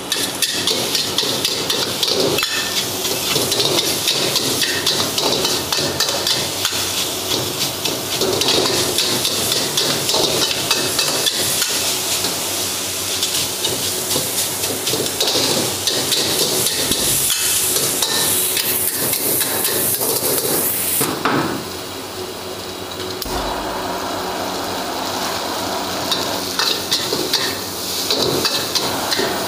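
Steel ladle and metal spatula clanking and scraping against a wok as fried rice is stir-fried: a rapid, continuous run of metallic knocks and scrapes, easing off for a couple of seconds a little past twenty seconds in.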